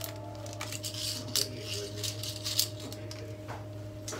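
Raw, dry golgappa puris and their plastic packet being handled, giving a few short crackles and rustles about a second apart over a steady low hum.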